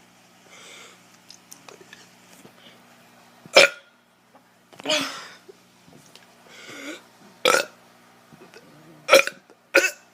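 A teenager burping repeatedly: about six short burps, a second or two apart.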